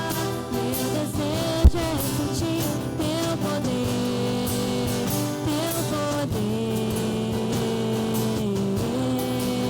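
Live worship band music: guitar with a held, gliding melody line over a steady low accompaniment, and one brief low thump about two seconds in.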